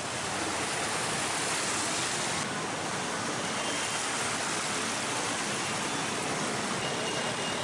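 Steady rushing hiss of water as motorcycles and cars wade slowly through a flooded street, tyres ploughing through the shallow floodwater.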